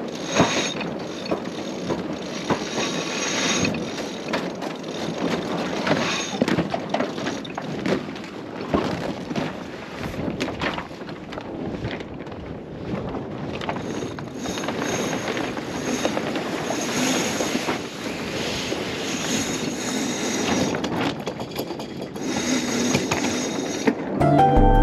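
Wind and water noise aboard a sailing yacht under sail: wind buffeting the microphone and the hull rushing through the water, swelling and easing unevenly. Music comes in at the very end.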